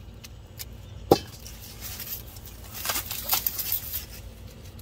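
Handling noise: a single sharp knock about a second in, then a burst of crackling and rustling.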